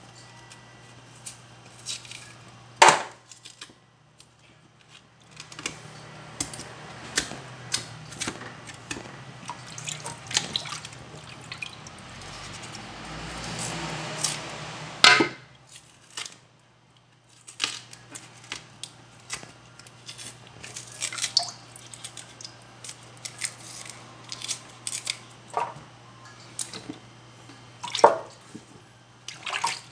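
Bananas being peeled by hand in a metal basin of water: irregular splashes, drips and sloshing with sharp clicks and knocks against the basin, the loudest splashes about 3, 15 and 28 seconds in. A steady low hum runs underneath.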